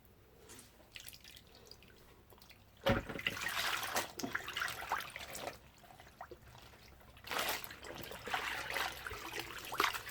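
Water splashing and dripping as wet laundry is handled in a basin of rinse water, in two spells: a sudden splash about three seconds in that runs for a couple of seconds, then more splashing and dripping from about seven seconds in.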